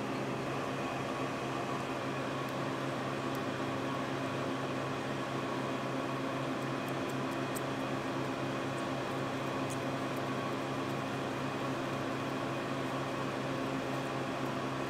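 Steady machine hum with a low drone and several fixed tones, unchanging throughout, and a few faint, light ticks.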